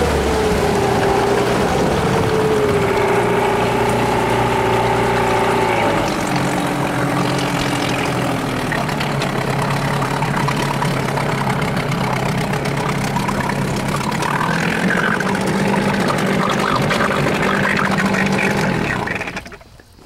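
Mercury 8 hp outboard motor running at low throttle, its pitch easing down at the start and then holding steady; the motor cuts off near the end.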